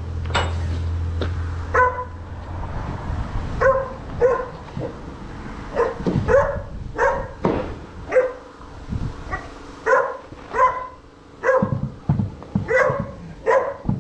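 A Labrador retriever barking repeatedly in short runs of two or three, a watchdog warning at a visitor.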